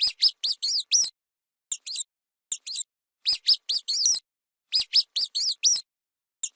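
Rodent squeaking: rapid high-pitched squeaks in clusters of two to six, each a short rising-then-falling chirp, with brief pauses between clusters.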